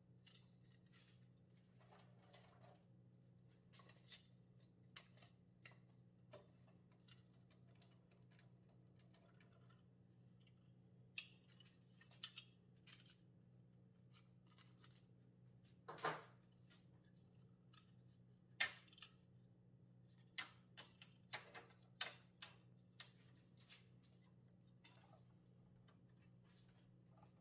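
Near silence with a faint steady low hum and scattered light clicks and knocks, a few louder ones in the second half, from a wooden board being handled and set against the fence of a miter saw.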